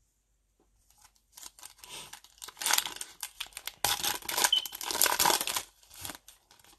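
A Panini Mosaic basketball card pack's wrapper being torn open and crinkled by hand. The tearing starts about a second in and comes in irregular crackly bursts, loudest through the middle.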